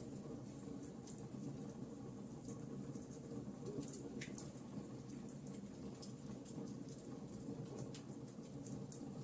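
Wood fire crackling: frequent small sharp pops and snaps over a low steady rush of the flames.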